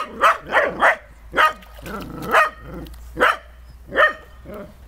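Small puppy barking over and over in short, high yaps, about two a second.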